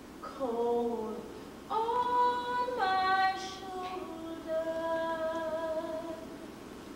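A woman singing in a musical-theatre style. She holds a few long notes, gliding down at first and then stepping up to higher held notes.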